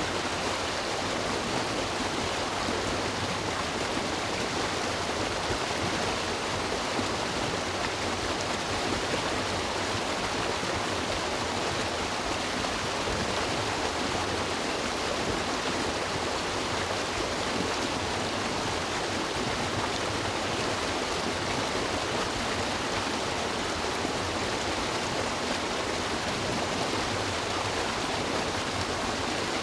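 River water rushing and splashing over rocks, a steady, unbroken flow.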